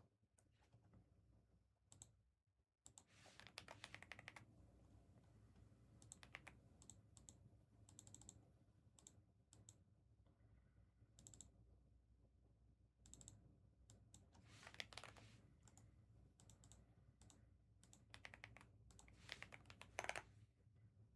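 Faint computer keyboard typing and clicking, in short scattered runs of keystrokes, over a low steady hum.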